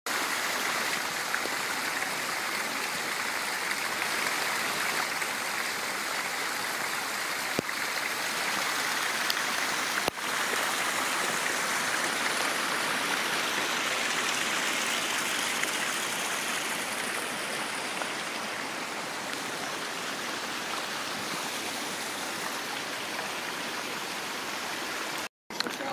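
Steady rushing of running water from a mountain stream or small waterfall, with a brief dip about ten seconds in.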